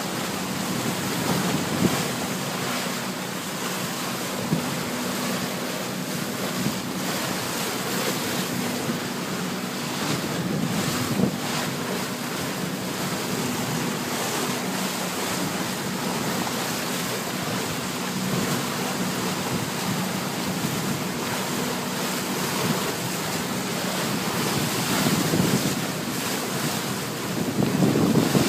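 Bow wave of a boat under way rushing and splashing along the hull, with wind buffeting the microphone and a steady low engine hum underneath. The rushing swells louder near the end.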